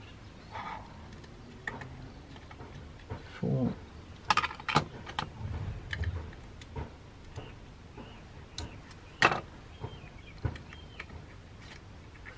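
Scattered small clicks and light metallic clinks as tiny Torx screws are worked out of a sat nav's circuit board with tweezers and a driver and dropped into a small pot of screws. The sharpest clicks come about four and a half seconds in and again about nine seconds in.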